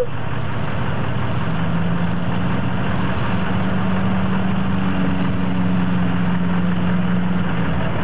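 A vehicle engine idling with a steady low hum under a constant rush of noise.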